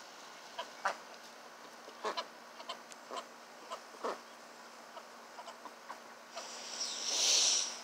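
Young Cayuga and Ancona ducks giving short, quiet calls every second or so as they forage. Near the end a louder hiss swells and fades over about a second and a half.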